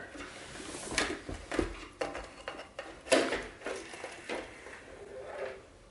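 Hard plastic parts of a Vitesy Natede air purifier being handled, its inner grille basket and housing giving a few light clicks and knocks, about five spread over several seconds, with soft rubbing between them.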